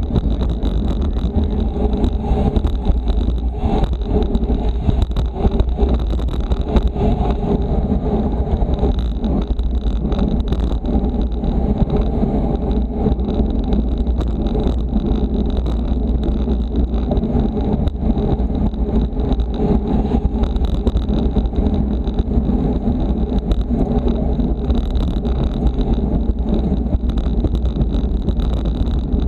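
Steady rush of wind over the microphone of a camera riding in a pack of racing bicycles, a heavy low rumble with road and tyre noise mixed in.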